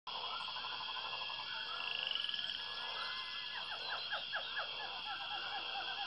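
Dense chorus of animal calls: a steady high trill under everything, fast pulsed calls at the start, a quick trill about two seconds in, and a run of short sharp chirps through the last couple of seconds.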